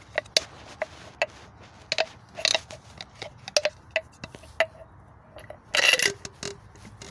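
Handling noise from a new shock absorber and its plastic dust boot: scattered clicks and taps, with a louder rubbing scrape about six seconds in as the boot is worked onto the shaft.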